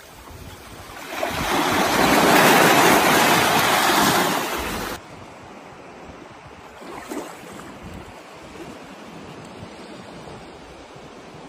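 Small waves washing onto a sandy beach: a loud rush of surf swells up about a second in and cuts off suddenly about halfway through, followed by quieter lapping of shallow water.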